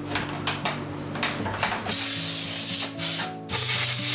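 A few light metallic clicks and knocks, then two loud bursts of compressed air from a blow gun, each about a second long, the second starting about three and a half seconds in.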